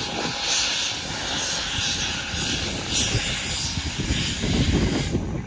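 C61 steam locomotive reversing, with hissing bursts of steam from its open cylinder drain cocks about once a second over a low rumble. The hissing stops about five seconds in.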